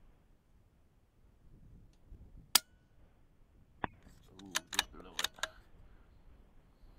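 A single suppressed shot from a Ruger Precision Rimfire .22LR bolt-action rifle with subsonic standard-velocity ammunition, a sharp muffled pop about two and a half seconds in. About a second and a half later comes a quick series of metallic clicks as the bolt is worked to eject the case and chamber the next round.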